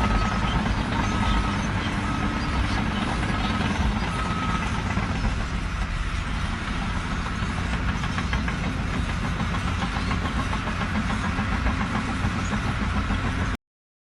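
An engine running steadily with a heavy low rumble, with a faint high beep sounding several times in the first few seconds.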